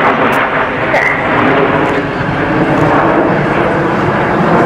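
Steady jet noise from the Red Arrows' BAE Systems Hawk T1 jets, the team flying in close formation overhead.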